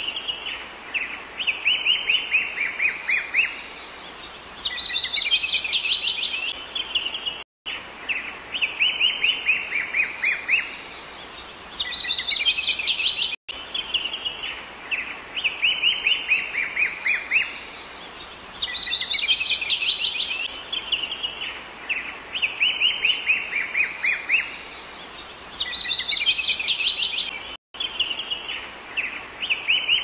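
Songbird singing in repeated phrases of fast trilled notes, each phrase a couple of seconds long with short breaks between, over a faint steady background hiss. The sound cuts out for an instant three times.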